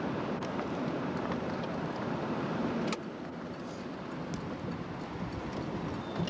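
Steady road and engine noise heard from inside a moving car. There is one sharp click about three seconds in, after which the noise is a little quieter.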